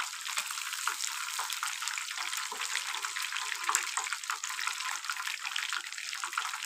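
Masala-coated fish pieces deep-frying in hot oil in a pan, the oil sizzling and crackling steadily.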